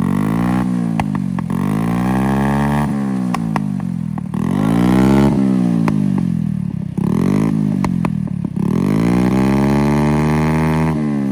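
Kawasaki Z900's inline-four engine revved hard again and again through a loud aftermarket exhaust, its pitch climbing and falling about five times, with sharp pops and crackles from the exhaust as the revs drop.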